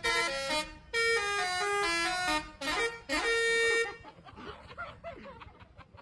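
Bus telolet horn, a multi-tone air horn, playing a quick melody of stepped notes that ends on a longer held note a little under four seconds in. After it stops, people's voices are heard faintly.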